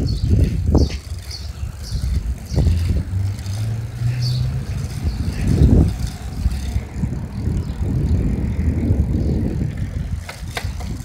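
A bicycle rolling over pavement, heard through a handlebar-mounted phone: an uneven low rumble of the ride and wind buffeting the microphone, with small rattles and a couple of sharp knocks near the end.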